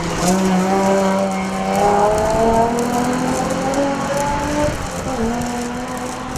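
Alfa Romeo GTV6's V6 engine pulling hard under load, its note climbing and dropping several times as the revs change.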